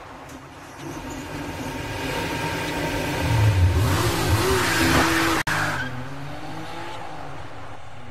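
Car sound effect: an engine building up, with a loud skid of tyres from about three and a half seconds to nearly six seconds in, then the engine running on more quietly.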